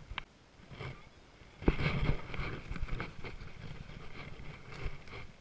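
A hooked largemouth bass being reeled in and landed on a baitcasting rod: a sudden loud hit about a second and a half in, with half a second of splashing and rustle, then scattered clicks and handling noise.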